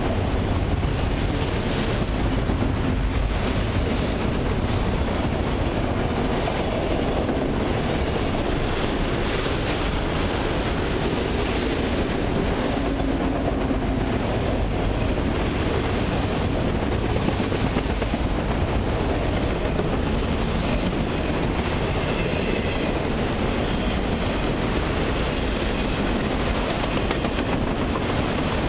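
Long string of autorack freight cars rolling past close by: a steady, continuous noise of steel wheels running on the rails.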